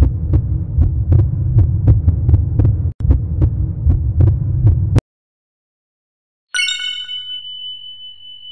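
Intro sound effects: a deep throbbing bass pulse with a steady beat of clicks, about two to three a second, that cuts off suddenly about five seconds in. After a short silence comes a quick cascade of bright chime dings, with one high tone ringing on and fading.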